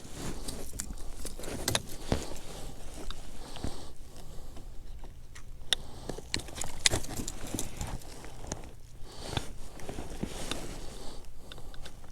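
Irregular clicks, knocks and rattles from a redfish being handled on a kayak while a hook stuck in it is worked loose.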